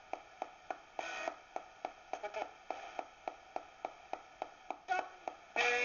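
Direct Linc ghost box radio sweeping through the band: an even run of clicks, about three a second, as it jumps from station to station, with brief fragments of static and broadcast sound caught between them.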